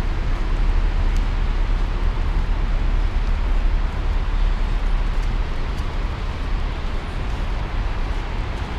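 Steady city street noise: a constant low rumble of road traffic with no breaks.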